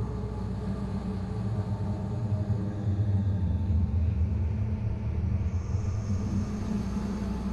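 Deep rumbling horror drone that swells about three seconds in and eases again, with a faint high whine joining it past the midpoint.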